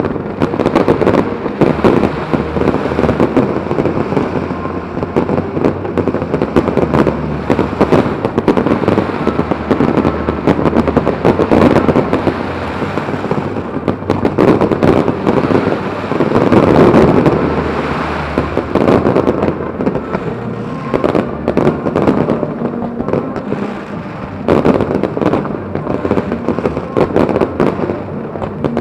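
Dense aerial fireworks barrage: many overlapping bangs and continuous crackling with no let-up, loudest a little past halfway through.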